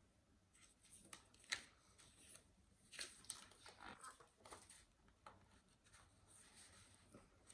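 Faint handling of a large hardcover picture book as it is opened: soft rustles and taps, the sharpest about a second and a half in.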